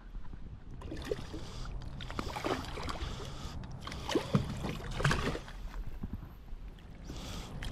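Water splashing and sloshing against a kayak as a hooked striped bass is fought near the boat, with scattered knocks and handling noises.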